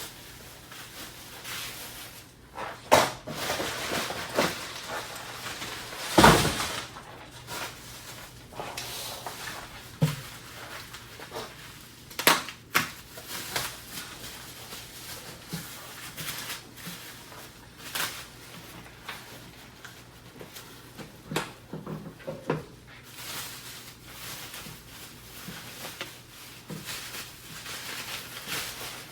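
Unpacking by hand: packing material rustling and shifting, with scattered knocks and a few sharper thumps as items are lifted out of the shipping box.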